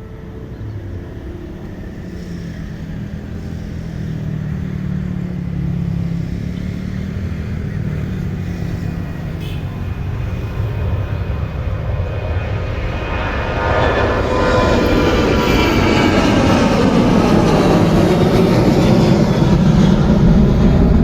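Jet airliner engines growing steadily louder as the aircraft draws near, the noise peaking over the second half with gliding engine tones.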